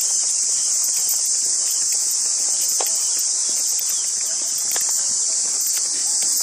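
Steady, high-pitched insect chorus droning without a break, with a few faint clicks from walking over it.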